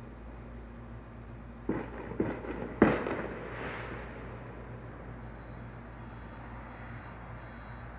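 Fireworks going off: four sharp bangs in quick succession about two seconds in, the last and loudest trailing off in an echo.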